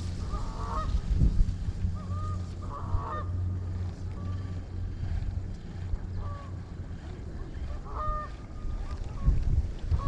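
Geese honking, short calls repeated every second or two, over wind buffeting the microphone.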